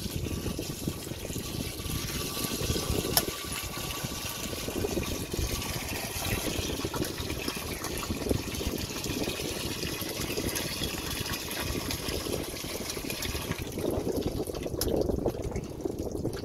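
Water sloshing and splashing steadily, with a couple of light knocks.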